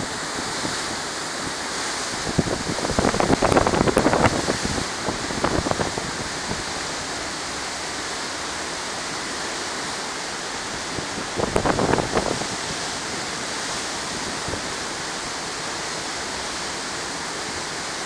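Steady rushing hiss of a ship's churning wake and open sea, with wind on the microphone. Two louder spells of rough buffeting stand out, a few seconds in and again about two-thirds of the way through.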